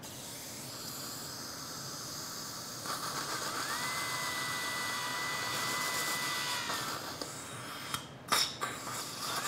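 Contra-angle dental implant handpiece with a thin drill bit spinning up to a steady high whine as it drills into the upper gum. It runs for about three seconds, stops, and starts up again right at the end. A steady hiss from the suction tip runs underneath, with a couple of sharp clicks near the end.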